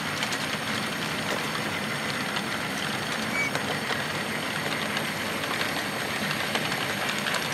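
Model freight train's cars rolling along the track: a steady rolling rumble with faint scattered clicks of wheels on rail.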